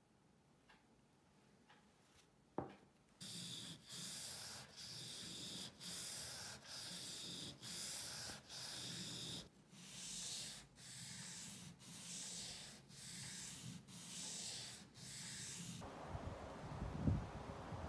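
A small steel blade being sharpened on a wet 8000-grit waterstone: about a dozen even back-and-forth rasping strokes, roughly one a second. The strokes stop about two seconds before the end, giving way to a low rumble.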